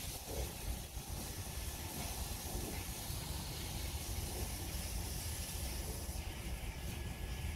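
Steady hissing of a small wood fire under a clay pot of greens simmering in coconut milk, over a steady low rumble.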